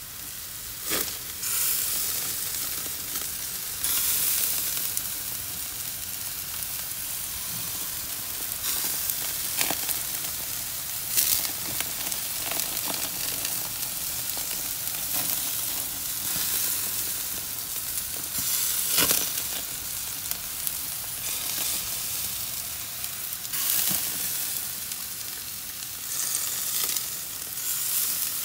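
Coconut-marinated beef sizzling on grill grates: a steady hiss with a few sharp pops and crackles scattered through it.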